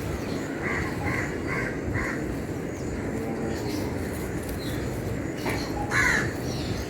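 A broom sweeping with a steady scratching, while birds call over it: a quick run of four calls about a second in and a louder single call near the end.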